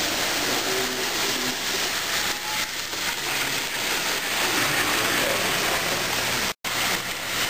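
Steady hiss-like background noise of a busy room around a model railway layout, with faint voices, cutting out completely for a moment about six and a half seconds in.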